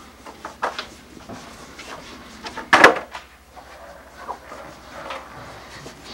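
Footsteps and a few light knocks, with one sharp thump about three seconds in as a skateboard is set down onto the carpeted hallway floor; then the skateboard's wheels roll quietly over the carpet.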